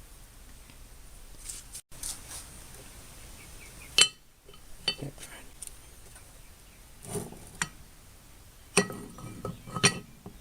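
Metal vise parts clinking and knocking together as they are handled and fitted: scattered sharp clicks, the loudest about four seconds in and a cluster of knocks near the end.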